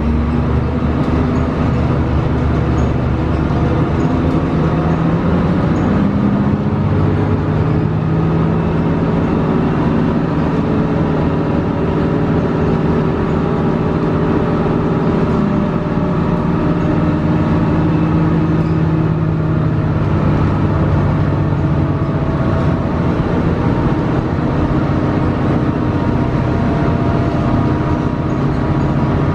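Cabin sound of a 2006 Gillig hybrid transit bus under way: its Cummins ISB 5.9 L diesel with the Allison EP40 hybrid drive running as a steady drone. The engine tones shift up and down a little as the bus drives, with faint interior rattles.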